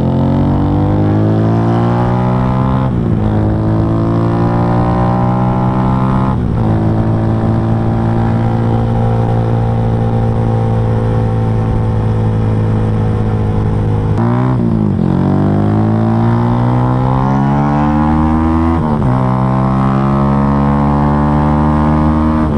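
Yamaha Y15ZR's 150 cc single-cylinder engine, fitted with a 62 mm big-bore block and an aftermarket R9 exhaust, pulling hard under way. The revs climb and drop back sharply at gear changes about three, six and nineteen seconds in, with a deeper dip and recovery in the middle where the throttle is briefly eased off.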